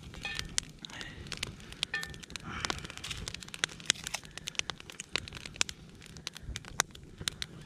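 Moose meat and fat crackling in a cast iron skillet over an open wood fire, with many irregular sharp pops.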